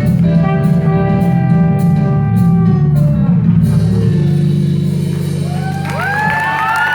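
Solo trumpet playing the closing phrase over a backing track with drums, ending on a long held note. Near the end the audience starts cheering and whooping.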